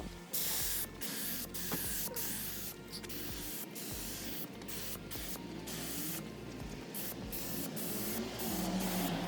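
Hissing spray, such as a compressed-air spray gun or air nozzle in use during car body work. It breaks off and starts again many times in quick succession.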